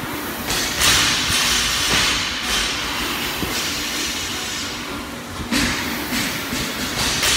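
Air rowing machine's fan flywheel whooshing, swelling with each hard drive stroke and easing on the recovery, about every two seconds.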